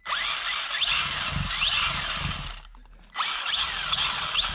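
WLtoys A959 RC buggy's electric motor and drivetrain revved with the wheels spinning freely off the ground: rising whines in two bursts, with a short pause about three seconds in.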